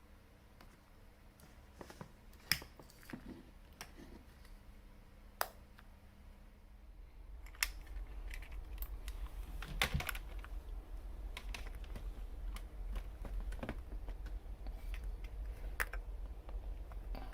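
Irregular light clicks and knocks of small hard parts being handled, over a low rumble that grows louder about seven seconds in.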